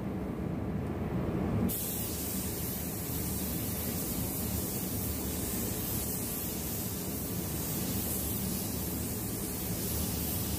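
Steady hissing noise, even and unbroken; its highest part is missing for the first second or two.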